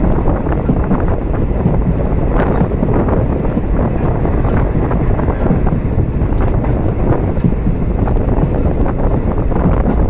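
Wind buffeting the microphone of a phone held at the window of a moving train, over the steady rumble of the train running along the track.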